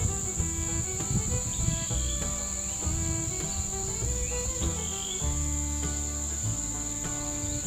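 Background music with a changing melody over a bass line, laid over a steady high-pitched chirring of insects.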